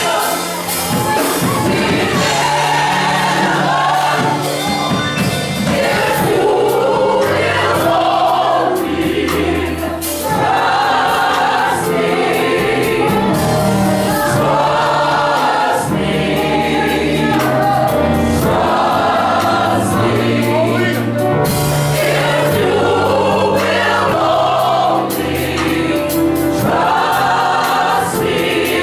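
Gospel choir singing with keyboard and percussion accompaniment, in phrases of a few seconds each over a steady bass line.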